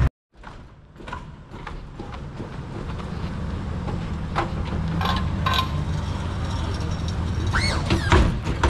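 Lowrider car's engine running as the car drives slowly by, getting louder over the first few seconds, with scattered clicks and a brief high-pitched squeal near the end.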